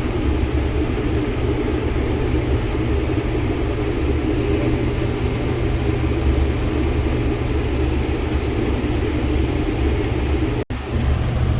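Case IH combine harvesting wheat, heard from inside the cab: a steady drone of the engine and threshing machinery. The sound drops out for an instant near the end.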